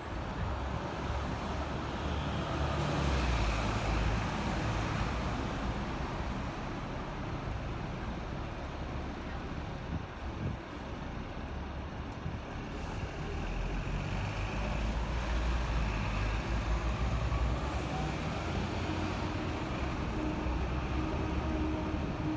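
Hong Kong double-decker electric tram running along its street tracks, heard from the upper deck: a continuous low rumble mixed with surrounding bus and road traffic. It swells louder about three seconds in and again in the second half, with a faint high whine drifting up and down at times.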